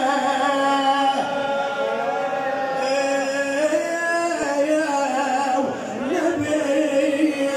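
Male voice chanting a Shia mourning lament in long, drawn-out notes that slide from one pitch to the next.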